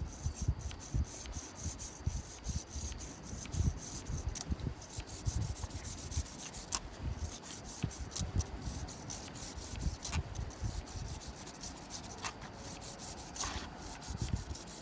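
Close rubbing and scraping with many irregular small clicks and low thumps: handling noise of hands and gear working right by the microphone.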